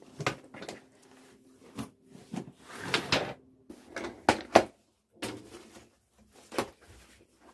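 A series of sharp knocks and clatters of household objects being handled, with a short rustling stretch about three seconds in, over a faint steady hum.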